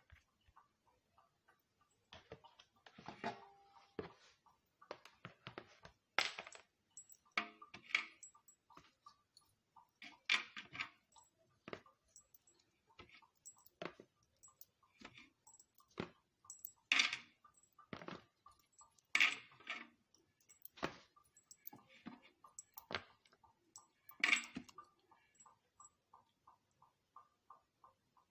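Irregular clicks and knocks of clear plastic steamer baskets and a utensil being handled as steamed wontons are moved on the perforated tray. Underneath, a faint steady ticking about three times a second.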